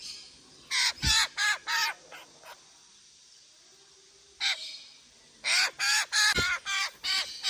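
A group of hand-raised birds giving short, harsh, crow-like calls in quick runs, two bouts of several calls each, as they crowd in begging to be fed. There are a couple of brief low thumps.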